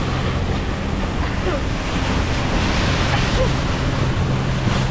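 A boat under way: its engine running with a steady low hum, water rushing along the hull, and wind buffeting the microphone.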